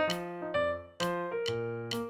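Background music: light keyboard melody in notes about half a second apart, each struck sharply and fading.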